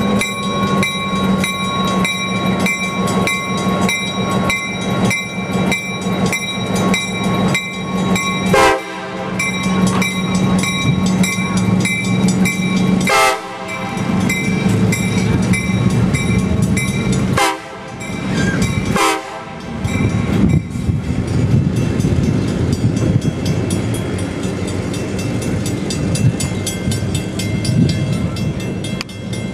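Railroad grade-crossing bell ringing rapidly and evenly over a diesel locomotive's engine idling. In the second half, rail cars rolling past on the track.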